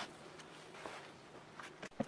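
A few faint clicks, one sharp one at the start and a softer one near the end, with a light rustle between them over a low steady hiss.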